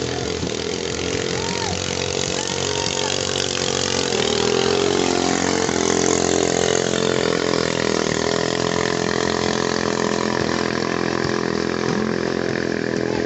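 Small-engine longtail racing boat (ketinting) engine running hard at high, steady revs. Its pitch dips briefly about four seconds in and again near eight seconds.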